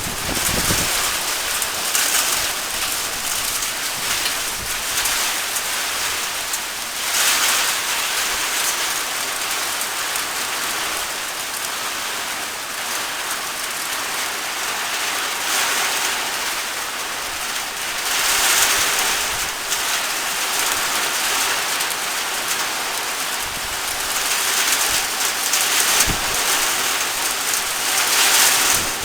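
Heavy rain pouring down in a steady hiss, swelling louder several times as it comes down harder.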